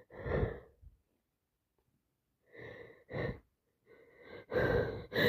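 A woman with a congested head cold taking gasping breaths: one near the start, two short ones about three seconds in, then longer, louder ones near the end, the catching inhalations that build up to a sneeze.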